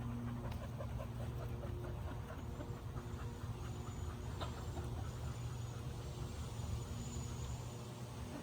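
A dog panting in quick, short breaths for the first few seconds, over a steady low hum.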